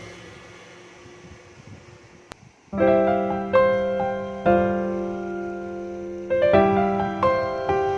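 Slow piano music. The previous passage fades into a short lull, then held chords begin a little under three seconds in, with a new chord struck every second or so.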